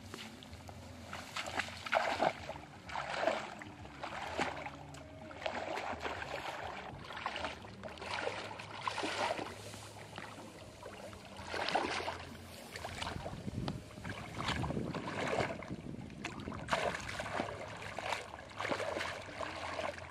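A person wading through shallow muddy water and tall grass. Each stride brings a swishing splash, repeating every second or two.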